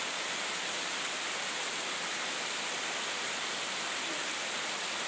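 Steady hiss of sleet, ice pellets coming down like heavy rain and striking the ground and surfaces outside.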